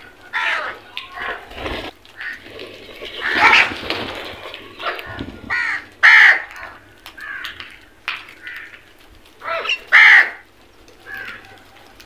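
House crows cawing, many short harsh calls from several birds one after another, the loudest about six and ten seconds in.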